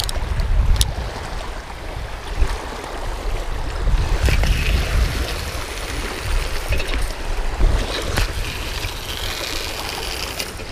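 Wind buffeting the microphone in a steady, gusting rumble, with small waves lapping on a rocky lakeshore; a couple of light clicks near the start.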